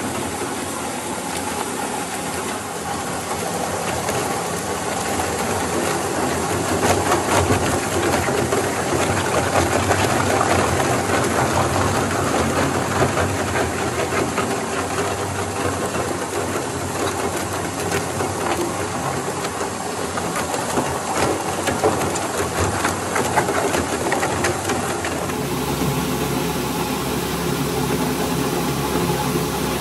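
GENOX GCV600 combo shredder-granulator running under load, its cutter shafts crunching through plastic scrap: purge lumps and tangled strands. A continuous machine noise full of dense crackling and snapping as the plastic breaks up, turning abruptly to a steadier hum about 25 seconds in.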